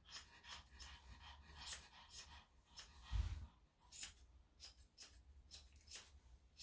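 Grooming scissors snipping a Shih Tzu's leg hair: a steady run of short, crisp snips, about two a second, with one soft low thump about three seconds in.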